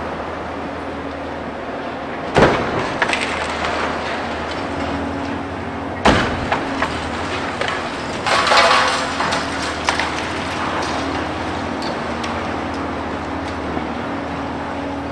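Concrete and debris crashing from a high-rise being demolished: two sharp cracks about two and a half and six seconds in, then a crackling rush of falling rubble around eight to nine and a half seconds. Under it, the steady drone of a heavy diesel demolition machine.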